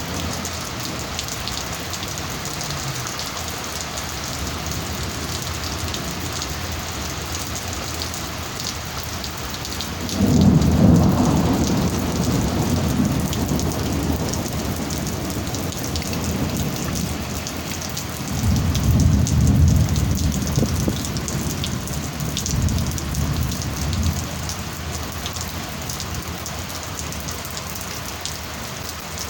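Steady heavy rain hissing on surfaces, with thunder rumbling twice: a sharp-onset peal about a third of the way in that fades over a few seconds, and a longer rolling rumble past the middle.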